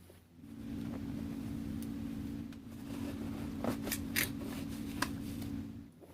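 A small motor running with a steady hum that starts about half a second in, dips briefly near the middle and stops just before the end, with a few sharp clicks in its second half.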